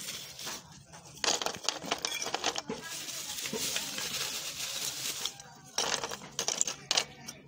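Lumps of wood charcoal dropped and set by hand onto thin wooden slats in a cinder-block grill, making irregular light clinks and scraping clatter, with a short pause about five seconds in.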